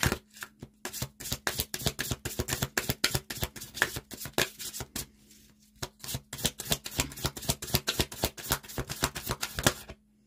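A deck of reading cards being shuffled by hand: rapid, dense clicking of cards against each other. It breaks off about four seconds in, then resumes for another four seconds or so.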